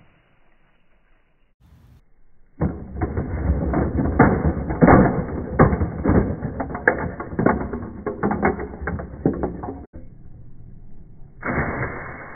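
Hard plastic toy parts clicking, knocking and clattering against each other: a dense run of sharp snaps and knocks lasting about seven seconds, as the body panels and spoiler of a large plastic Lightning McQueen toy car are handled. It starts about two and a half seconds in and stops abruptly, and a steadier rustling noise follows near the end.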